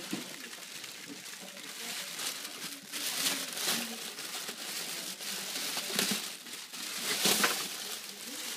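Plastic packaging crinkling and rustling as it is handled and pulled off, in irregular bursts, loudest about three seconds in and again around seven seconds in.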